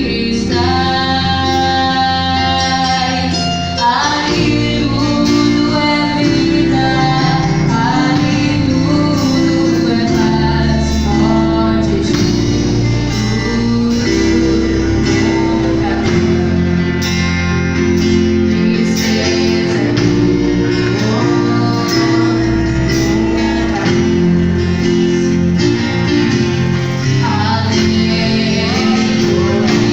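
A gospel song: singing voices over guitar and instrumental accompaniment.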